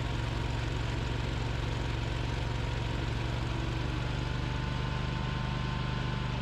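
Snowblower engine running steadily under load, with a constant drone as it throws a plume of snow from the chute.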